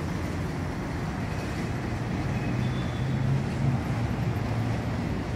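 City street traffic: cars and their engines passing, a steady low rumble that swells slightly a little past the middle.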